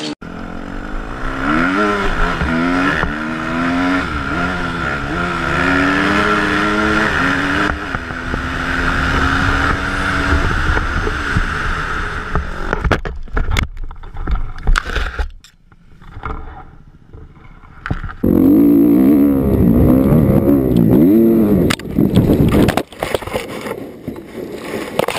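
Dirt bike engine revving up and down through the gears, heard close from a helmet camera with wind noise. After a quieter pause, an engine revs hard again, then the sound turns ragged near the end.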